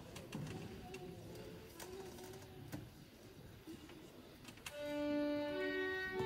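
A hushed room with small scattered clicks and a few faint notes, then about three-quarters of the way in an elementary-school string orchestra of violins begins playing, holding long sustained notes that change pitch every second or so.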